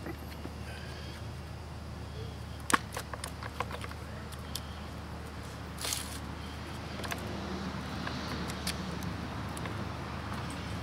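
Light clicks and clinks from hands fitting the side cover and chain back onto a Stihl MS 290 chainsaw's bar, with one sharp click about three seconds in, a few smaller ones right after, and a brief scrape near the middle, over a steady low hum.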